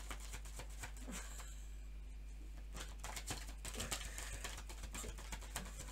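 A deck of oracle cards being hand-shuffled: a run of quick soft clicks and flicks as the card edges slide and snap together, with a short pause about one and a half seconds in before the shuffling resumes. A faint low electrical hum sits underneath.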